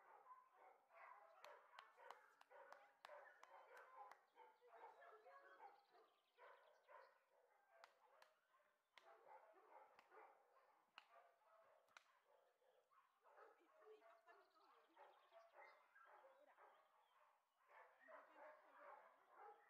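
Faint barking and yapping of several dogs, overlapping, with short lulls.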